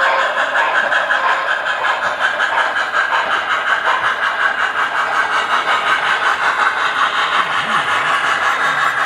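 Model freight train running along the layout track, heard from a car riding in the train: a steady, fast, even rhythmic clatter of wheels and running gear.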